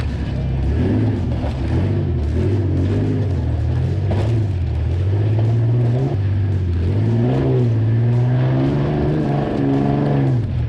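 Engine of an off-road race vehicle running hard while driving, its pitch rising and falling with the throttle and climbing several times in the second half before dropping at the end.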